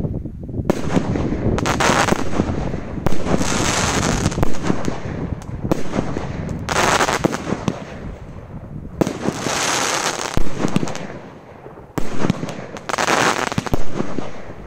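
A Detonator 37-shot 1.3G firework cake firing a barrage: shots go off one after another in sharp reports, and several are followed by about a second of dense crackling.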